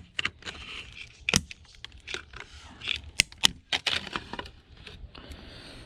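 Plastic casing of an alarm clock being prised apart by hand: an irregular scatter of sharp clicks and small cracks with brief scraping.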